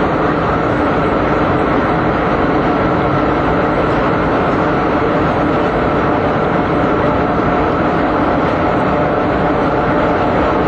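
Loud, steady machinery noise with a few constant tones running through it, unchanged throughout.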